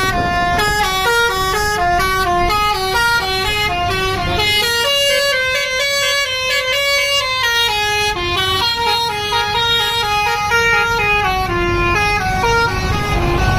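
Multi-tone 'telolet' (basuri) musical horn of an SJM Trans tour bus playing a quick melody of short stepped notes, several a second, with the low notes dropping out for a couple of seconds in the middle. A low rumble runs underneath.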